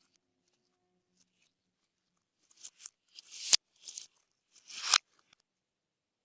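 Slime being squished and pressed by hand: after a quiet start, a few short sticky crackles, two of which end in a sharp air-pocket pop.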